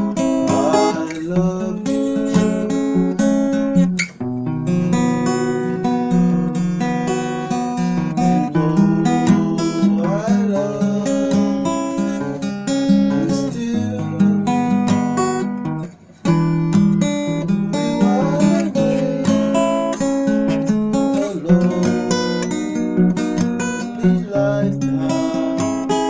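Acoustic guitar music, strummed and plucked, with short breaks about four seconds in and again about sixteen seconds in.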